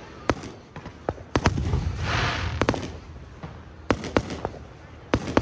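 Fireworks display: a string of sharp bangs from bursting shells, irregularly spaced a fraction of a second to about a second apart. A rushing, crackling hiss swells between bangs around the middle.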